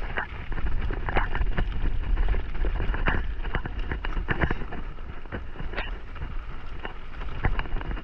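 Mountain bike rolling fast down a loose gravel trail: tyres crunching over stones, with frequent sharp clicks and rattles from the bike and the gravel. Wind buffets the microphone underneath.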